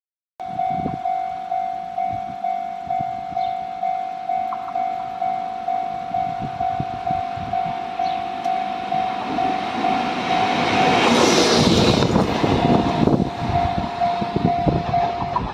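Level-crossing warning bell ringing about twice a second with an even, steady tone. About ten seconds in, an approaching electric locomotive's running noise builds into a loud rumble and hiss that briefly drowns the bell.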